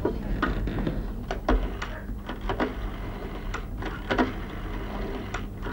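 Rotary telephone being dialled: a run of irregular short clicks from the dial, over a steady low mains hum.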